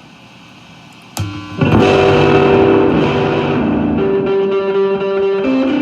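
Electric guitar played through distortion and delay: a note is picked about a second in, then ringing chords sustain and shift pitch a couple of times. The guitar sounds out of tune and needs tuning.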